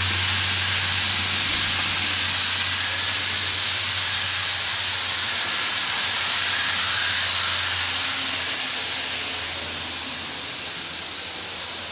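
Model diesel locomotive and coal hopper cars rolling along the track: a steady hiss with a low hum, getting quieter in the last few seconds.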